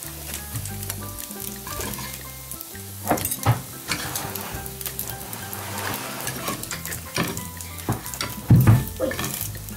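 Bread slices soaked in egg and milk frying in vegetable oil in a pan, sizzling and crackling steadily, with light clicks of a spatula and a heavier knock near the end.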